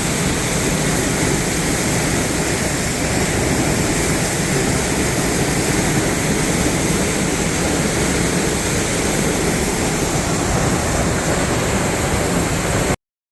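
Tunnel Falls pouring close by: a loud, steady rush of falling water. It cuts off suddenly near the end.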